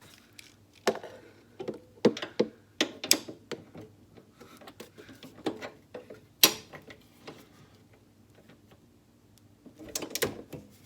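Hand ratchet and metal parts clicking and knocking in short irregular strokes while a bolt on an engine torque damper is tightened.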